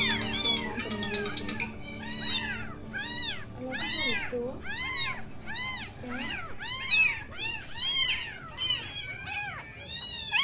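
A litter of very young kittens meowing over and over, high rise-and-fall cries about two a second, now and then overlapping one another.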